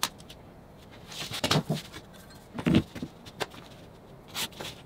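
A few short, scattered knocks and scrapes as a pencil, tape measure and mat board are handled on a workbench, with the strongest about one and a half, two and a half, and four and a half seconds in.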